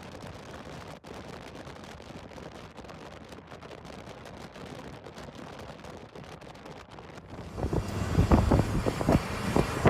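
Steady low rumble, then about three-quarters of the way in, louder, gusty wind buffeting the microphone.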